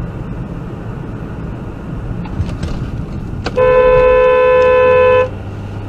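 Car horn sounding one steady blast of nearly two seconds, starting about three and a half seconds in, over the steady road and engine noise inside a moving car. It is a warning honk at a car crossing just in front.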